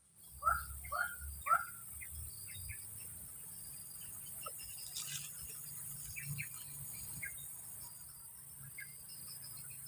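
Three short bird calls in quick succession, about half a second apart, then scattered faint chirps over a steady high-pitched buzz of insects.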